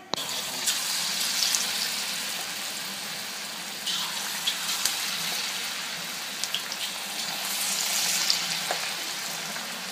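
Besan batter fritters (bhaji) deep-frying in hot oil in a wok: a steady sizzle with scattered small pops, stepping up about four seconds in as another spoonful of batter drops in.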